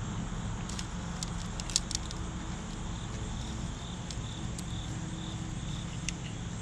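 A few light metallic clicks and taps, mostly in the first two seconds, as a tape measure is handled against a fiberglass hull, over a steady low hum and a faint pulsing high chirp.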